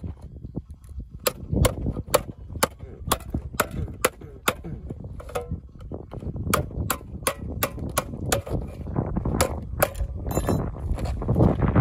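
A stone hammering a knife blade through the top of a steel food tin to cut it open: a steady series of sharp metallic taps, about two to three a second.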